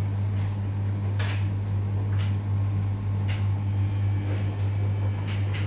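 Footsteps on a tiled floor, about one a second, over a steady low hum.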